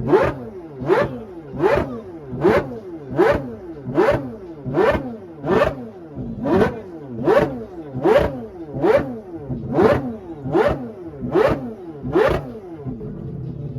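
Rotary engine revved in quick repeated throttle blips, about one every 0.8 seconds, each rising in pitch and ending in a sharp crack. The blips stop near the end and it settles to a steady idle.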